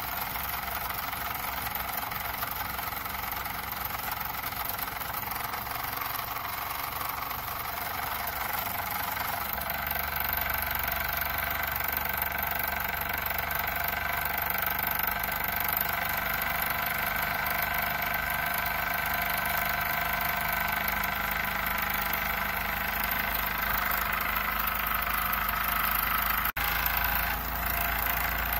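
Jean Comby toy steam engine with a single oscillating cylinder running steadily, puffing exhaust steam as it drives its flywheel. It grows a little louder and fuller about ten seconds in.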